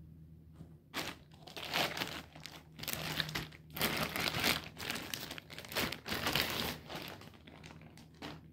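Thin plastic wrapping crinkling in irregular bursts as it is handled and pulled off a shotgun's wooden stock. It starts about a second in.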